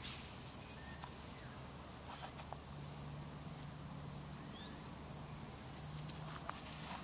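Quiet open-air background on a grass lawn: scattered faint ticks and rustles as a puppy moves about, a couple of short high chirps, and a low steady hum that comes in about three seconds in.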